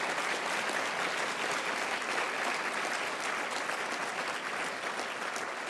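A large audience applauding, a steady patter of many hands clapping that tapers slightly near the end.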